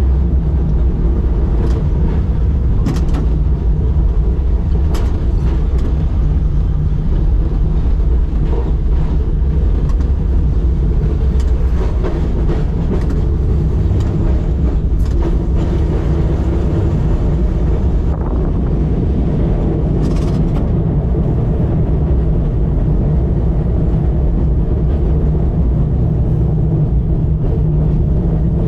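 A 1944 SW6-class Melbourne tram running along its track, heard from inside the cab: a steady low rumble with scattered sharp clicks and knocks.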